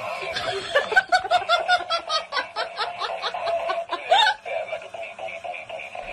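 High-pitched laughter, a quick run of short 'ha' notes about five a second for some four seconds, followed by music.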